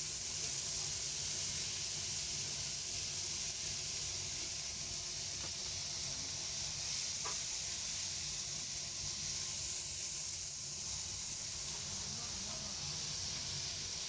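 Skewered squid and mushrooms sizzling in oil on a hot flat-top griddle: a steady, even hiss. A couple of faint clicks come in the middle as the skewers are handled.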